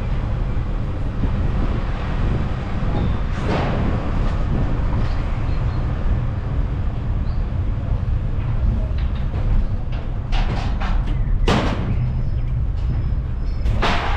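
Sightseeing city train running, a steady low rumble broken by a few sharp knocks.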